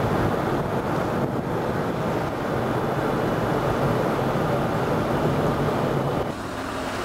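Wind rushing over the microphone on a moving ship's deck, with the steady low rumble of the vessel and the sea beneath it. It eases a little near the end.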